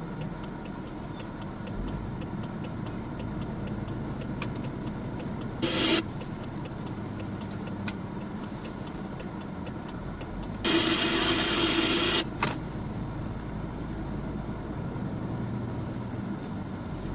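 Truck engine and road noise droning steadily inside the cab. A brief hiss comes about six seconds in, and a longer, louder hiss about eleven seconds in, with a few faint clicks between.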